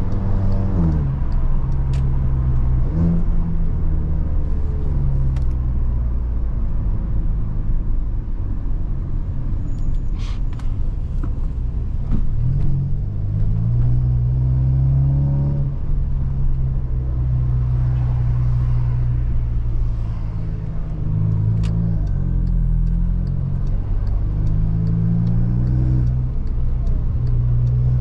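Volkswagen Jetta's turbocharged 2.0 TSI four-cylinder engine, Stage 2 remapped with a downpipe, running under way. Its pitch rises and falls several times with acceleration and gear changes, with steady cruising stretches in between.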